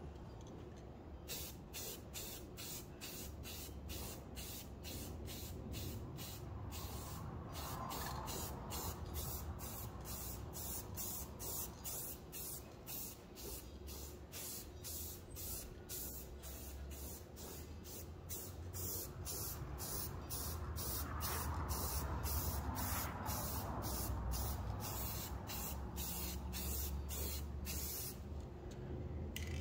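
A hissing spray of air in short, evenly spaced pulses, about two a second, over a steady low rumble.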